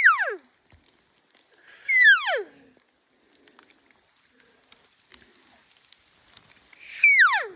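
Three elk cow calls, high mews that each slide steeply down in pitch over about half a second: one at the start, one about two seconds in and one near the end.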